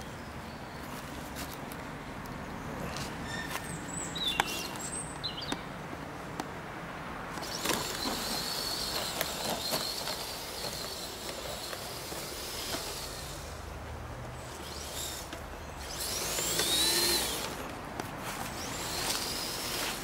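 Radio-controlled 6x6 model truck driving over leaf litter: a high motor whine that wavers for a few seconds near the middle, then rises and falls in pitch near the end, where it is loudest, over a bed of rustling and scattered crackles of dry leaves.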